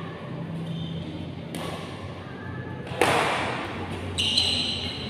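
Badminton rally: racket strikes on the shuttlecock, the loudest a sharp hard hit about three seconds in that rings out in the hall, with a lighter hit before it. A brief high squeak follows about a second after the hard hit.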